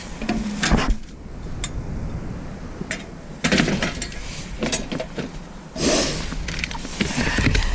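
A steel chair being handled and loaded: irregular metal knocks, clanks and scraping, louder in two stretches of a second or less, about three and a half seconds in and about six seconds in.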